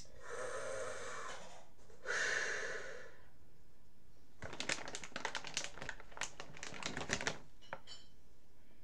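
A draw of breath through a lit glass pipe, then a louder breath out. About four seconds in comes a rapid, irregular run of sharp clicks lasting about three seconds.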